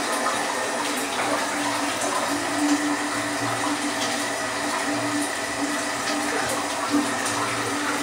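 Steady hiss of running water in a small tiled restroom, with a faint on-and-off hum under it.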